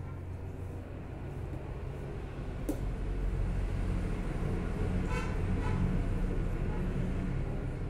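Low engine rumble of a passing vehicle, swelling from about three seconds in, with a short horn toot about five seconds in.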